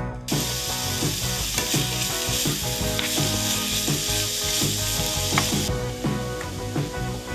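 Chopped onion and grated carrot sizzling loudly as they hit hot oil in a frying pan. The sizzle begins just after the start and cuts off suddenly about a second and a half before the end, with background music underneath.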